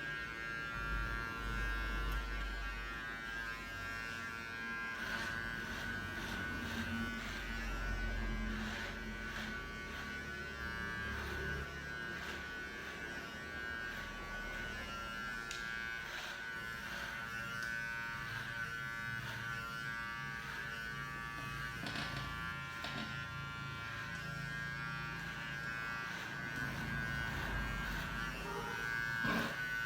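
Cordless battery-powered grass cutter, its motor rebuilt and upgraded to about 7,000 rpm, running with a steady high whine. Scattered short ticks come as it cuts.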